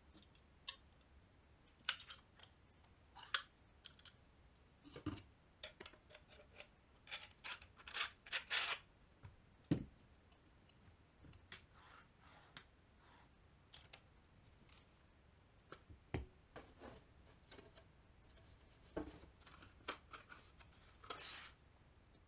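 Handling noise of a home-made router circle-cutting jig of aluminium rails, threaded rods and an MDF plate: scattered light clicks, metal-on-metal taps and scrapes as the parts are slid and fitted together, with a few louder knocks on the bench. Near the end there is a short rasp.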